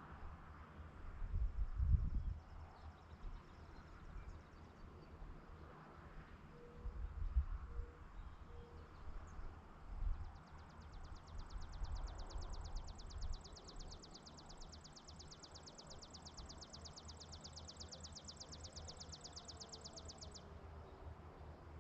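Rural outdoor ambience: gusts of wind buffet the microphone, strongest about two seconds in. From about halfway through, a fast, even high trill of about ten pulses a second sounds, then stops abruptly a second before the end.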